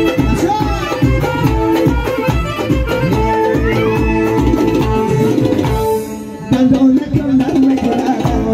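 Live folk dance music played loud through a PA: a flute melody over electronic keyboard and a steady drum beat. The music drops out for about half a second about six seconds in, then comes back in.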